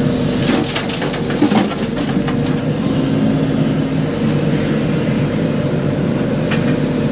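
JCB backhoe loader's diesel engine running steadily under load, heard from inside the cab. In the first couple of seconds there are knocks and a rattle as the bucket's load of stones is tipped into the tractor trolley.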